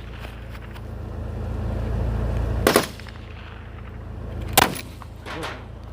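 Two sharp gunshot reports about two seconds apart, one a little under three seconds in and one near the end, over a steady low rumble. They come as an under-barrel grenade launcher mounted on an assault rifle is fired at a target.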